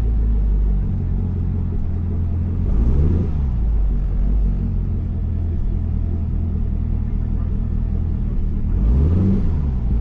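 2010 Camaro's LS3 V8 idling with a steady rumble, blipped on the throttle twice, about three seconds in and again near the end, each rev rising and falling quickly. The engine has been diagnosed with a misfire from failing spark plugs.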